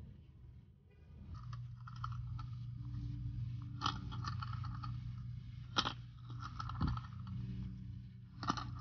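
Muffled underwater sound in a swimming pool: a steady low hum with patchy crackling and a few sharp clicks, the three loudest a couple of seconds apart.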